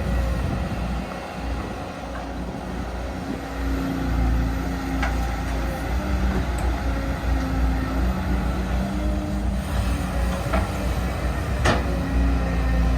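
Caterpillar 315D L hydraulic excavator's diesel engine running steadily under working load, its note shifting as it works, with a few sharp metallic clanks.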